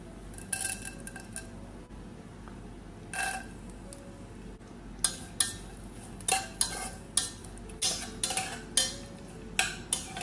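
Long metal spoon stirring raisins in oil inside a stainless steel pressure cooker, clinking and scraping against the pot. A couple of ringing clinks come early, then from about halfway in a quick run of strikes, roughly two a second.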